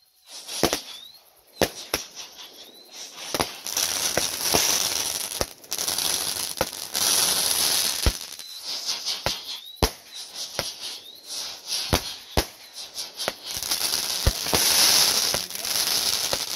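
Consumer fireworks going off: a string of sharp bangs roughly a second apart. A few seconds in, a steady crackling hiss of spraying sparks joins them.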